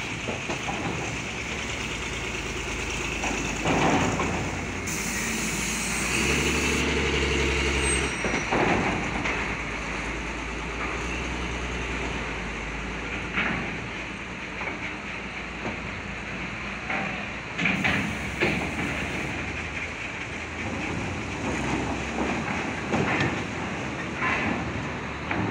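Heavy diesel trucks driving off a ferry across its steel ramp: engines running, with sharp clanks as wheels cross the ramp plates. Two bursts of air hiss from truck air brakes, about five seconds in and again near eighteen seconds.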